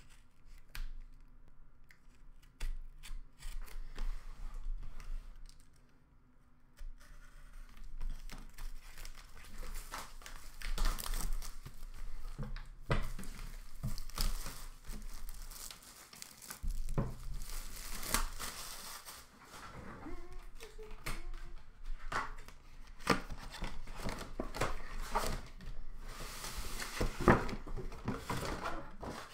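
Plastic shrink-wrap being cut into, then torn and peeled off a cardboard trading-card box, crinkling and crackling with sharp snaps. It starts with a few soft clicks and scratches and grows louder and busier after about seven seconds. Near the end come knocks from handling the cardboard box.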